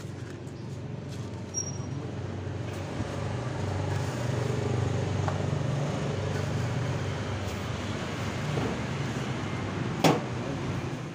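A motor vehicle engine running nearby: a steady low hum with road noise that grows louder a few seconds in and holds. One sharp click comes near the end.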